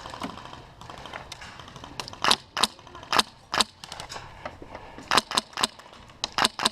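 Airsoft gun firing single shots as sharp cracks. About four come over two seconds starting about two seconds in, then a quicker run of shots near the end.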